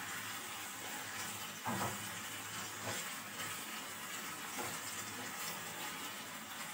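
Chicken and sliced vegetables sizzling in sauce in a nonstick frying pan, with a steady hiss, while a silicone spatula stirs them and scrapes the pan a couple of times.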